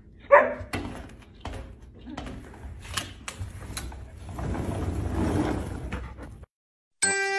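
Scattered clicks and knocks, with a short high squeal just after the start and a rising rustle a few seconds in; the sound cuts out briefly, then a tinkling music jingle begins near the end.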